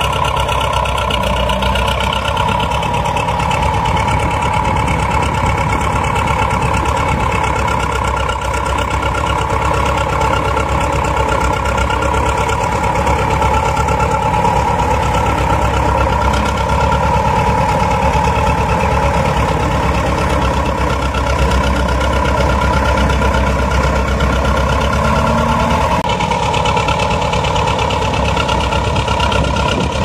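BEML BD80 crawler bulldozer's diesel engine running steadily while the machine pushes silt with its blade.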